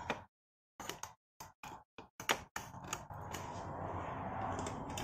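Small plastic clicks and knocks of a USB cable and its plug being handled and pushed into a 3D printer control board, a few sharp taps in the first couple of seconds, then a faint steady hiss.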